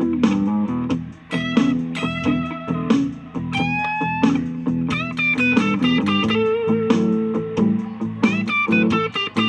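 Electric guitar played through an M-Vave BlackBox amp simulator, picking blues licks of single notes and short chords, with a bent note about four seconds in. Recorded through a phone's microphone.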